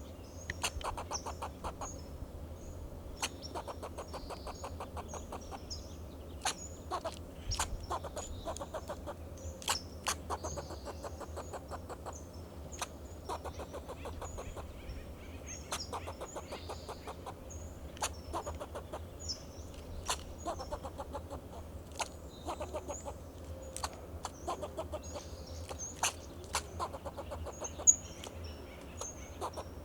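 Fox squirrel giving its alarm call: short, sharp, clucking barks, in quick rattling runs near the start and then singly about once a second, a warning at a perceived threat.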